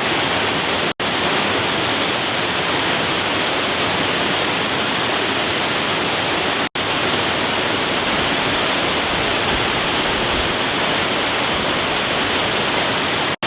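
Waterfall rushing: a loud, steady noise of falling water. It cuts out for an instant twice, about a second in and around the middle.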